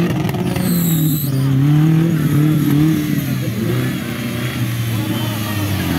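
Off-road buggy engine revving, its pitch rising and falling repeatedly as the driver works the throttle climbing out of a muddy ditch.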